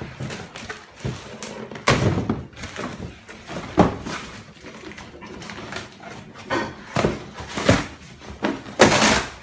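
A series of irregular knocks and thumps in a small room, about six sharp ones spread over several seconds.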